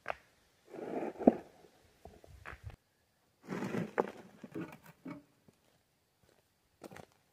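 Rocks being lifted off a trailer-load of stone, grating and clacking against one another. Two short spells of scraping each end in a sharp knock, about a second in and about four seconds in, and a few lighter clicks follow.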